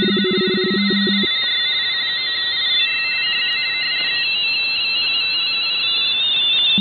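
Several amateur radio RTTY signals on the 20-metre band, heard through a shortwave receiver over band hiss: each one warbles rapidly between two tones as it frequency-shift keys its teleprinter text. A stronger, lower-pitched pulsing signal stops about a second in.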